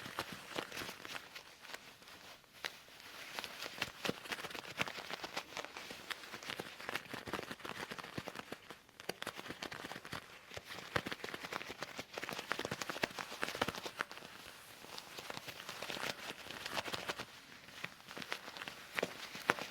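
Loose leather gloves being handled: a continuous crinkling and creaking with many small sharp clicks, swelling and easing in waves of a few seconds.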